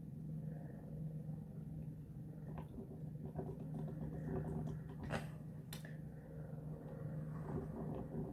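Soft sucking and faint mouth clicks of a drink being sipped through a straw, with a couple of sharper clicks a little past halfway, over a steady low hum.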